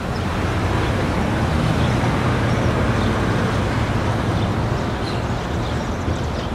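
Steady road-traffic ambience: a low, even rumble of distant traffic with a constant hiss.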